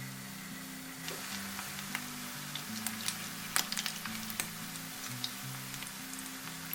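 Spiral potato fries frying in hot oil: a steady sizzle, with sharp crackles and pops starting about a second in and coming more often later.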